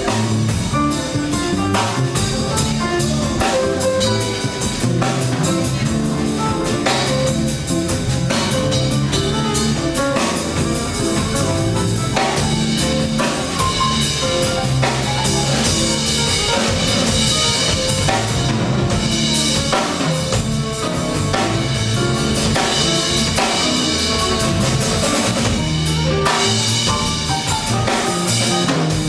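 Live jazz band playing: acoustic piano with a drum kit keeping time, the piano taking a solo.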